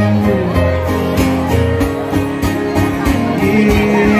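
Two acoustic guitars strummed and picked together in a live country song performance.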